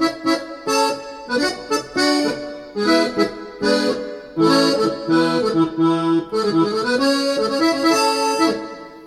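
Yamaha Genos keyboard playing its sampled norteño accordion voice: a melodic phrase with chords, fading out at the end.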